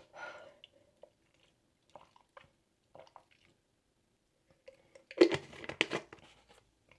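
Drinking through a straw from a plastic tumbler: faint sips and small handling knocks, then a louder cluster of clicks and rustles about five seconds in as the tumbler's lid is handled.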